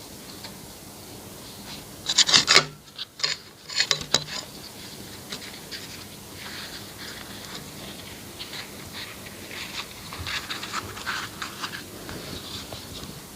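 Close-miked eating sounds: a burst of loud crackly clicks and rustles about two seconds in, then softer scattered scratchy clicks.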